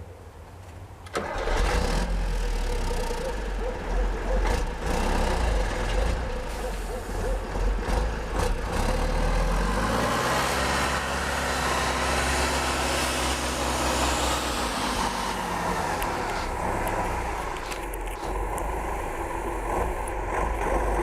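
A vehicle engine comes in loud about a second in and keeps running, its pitch rising and falling as it revs.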